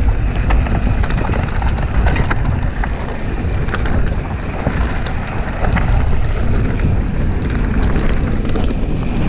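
Downhill mountain bike running fast down a dirt trail: heavy wind buffeting on the handlebar camera's microphone, with tyres rolling over dirt and scattered sharp clicks and rattles from the bike over bumps.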